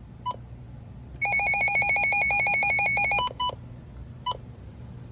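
Midland WR100 weather radio running its alert test: a couple of single button beeps, then a loud rapidly pulsing electronic alarm, about seven pulses a second, for about two seconds, then a few more single beeps.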